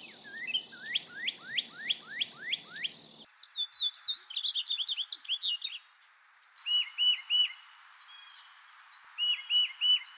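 Small birds calling in three abruptly changing segments. First comes a run of quick downward-sweeping chirps, about three a second, then a rapid high twitter, then two groups of three to four clear repeated whistled notes.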